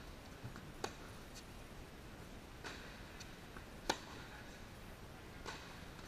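Tennis rally on an indoor hard court: four sharp pops of the ball struck by racquets and bouncing, about every second and a half, the loudest about two-thirds of the way in.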